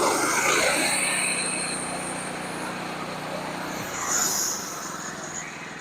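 Sawmill running with its engine at a steady pitch while the saw cuts through a log. A loud rush of cutting noise fades over the first couple of seconds, and a short high hiss comes about four seconds in.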